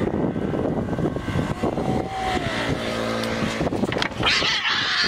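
Two domestic cats in a fight standoff: a drawn-out low growling yowl midway, then a harsh hissing screech about four seconds in as one rears up and swats, over a steady low rumble.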